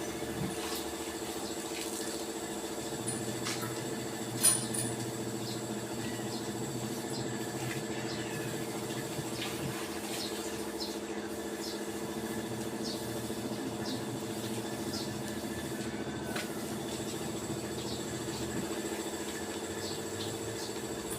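A steady machine hum with scattered light clicks and one sharp knock about four and a half seconds in.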